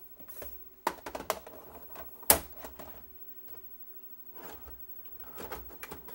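A VHS cassette being pushed into a Sylvania SV2000 VCR/DVD combo's tape slot and taken in by the loading mechanism: a run of sharp plastic clicks and clunks, the loudest about two seconds in, then softer mechanical rustling near the end.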